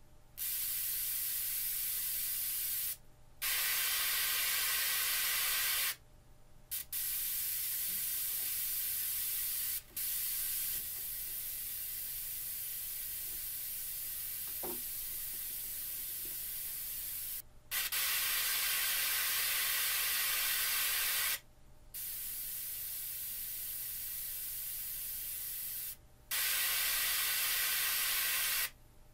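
Visaton SC 10 N tweeter playing a steady hiss of test noise, cut off for a moment every few seconds as capacitors are swapped into its first-order crossover. Connected full range, the hiss is louder and reaches lower; through a 1 µF series capacitor it becomes thinner, higher and quieter, because the low end is filtered off.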